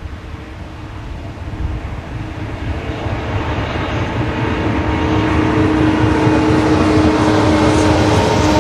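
A heavy coal train hauled by a pair of Queensland Rail electric locomotives approaching and passing close by: a low rumble with a steady hum of several tones, growing steadily louder as the locomotives draw level and the loaded coal wagons start rolling past.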